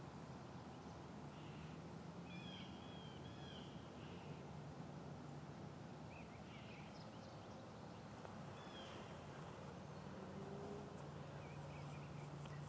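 Faint outdoor ambience: a steady hiss and low hum, with a few short, high bird chirps now and then.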